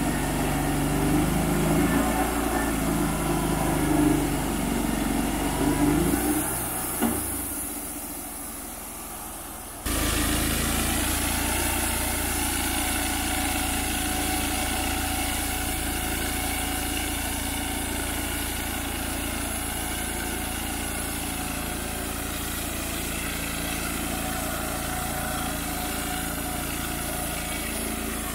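Wood-Mizer LT35HD sawmill's engine running, its note shifting for the first few seconds. The sound fades for a few seconds, then cuts back in abruptly about ten seconds in and runs steadily on.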